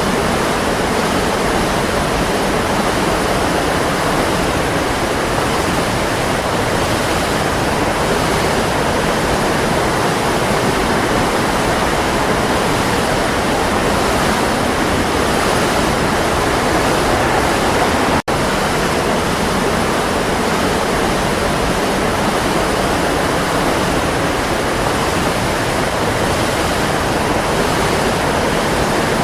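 Waterfall: a steady, loud rush of falling water, cutting out for a split second about two-thirds of the way through.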